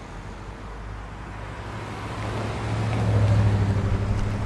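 Road traffic: a vehicle driving past close by, its engine hum and tyre noise growing louder to a peak about three seconds in.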